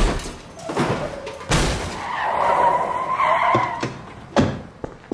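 Car crash: several sharp impacts and clatter, with tires screeching for about a second and a half around the middle, then a few more knocks.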